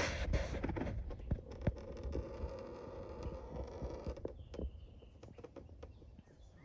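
Oil drain plug being slowly unscrewed by hand under a 2018 Ford F-150's engine, with a short rustle at the start and then many small clicks and light rattles that fade away toward the end.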